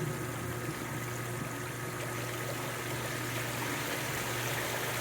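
Water trickling and splashing down through the ceramic media of a stainless steel Baki shower koi-pond filter, fed from a PVC spray bar by a running pump; steady, with a low hum beneath.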